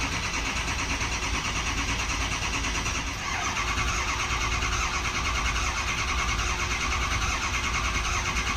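Starter cranking a 6.0 Powerstroke V8 turbodiesel that is kept from firing, with its FICM unplugged, to prime the oil system: building oil pressure and filling the turbo and external oil cooler lines. A steady, even cranking rhythm that eases briefly about three seconds in.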